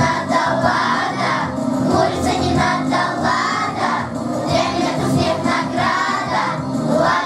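A group of children singing together to a backing music track.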